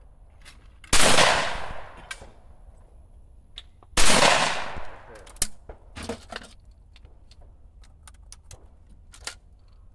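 Two shotgun shots at clay targets, about three seconds apart, each with an echoing tail that fades over about a second. Fainter sharp clicks follow.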